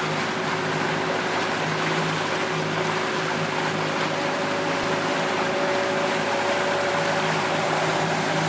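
Boat engine running steadily under way, a constant hum under a strong rush of water and wind noise.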